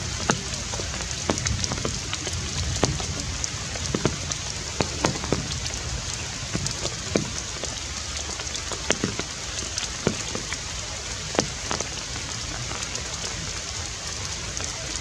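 Steady rain falling, with many sharp, irregular drop impacts heard over the hiss.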